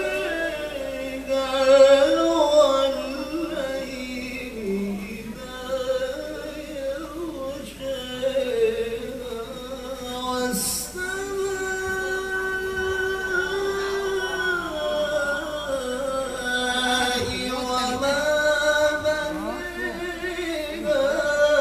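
A male qari reciting the Quran in the melodic tilawah style: one voice in long, ornamented melodic phrases that climb and fall in steps, holding a long high note about halfway through.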